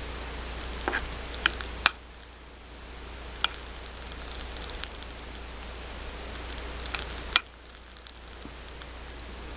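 Mocha drink mix powder crackling as it hits liquid: a faint sizzle of many fine, scattered pops. Two sharper clicks stand out, one about two seconds in and one near the end.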